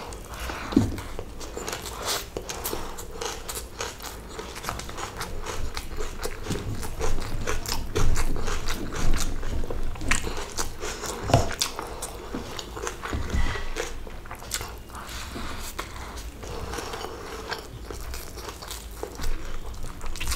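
A person chewing and biting mouthfuls of chicken biryani eaten by hand, with many short, irregular mouth clicks.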